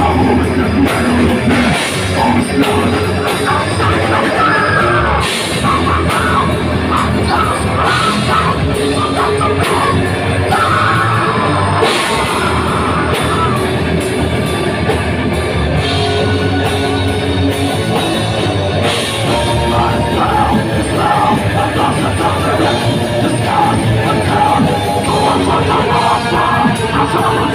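Live heavy metal band playing: drums, bass, electric guitar and keyboard, with a vocalist yelling into the microphone over them.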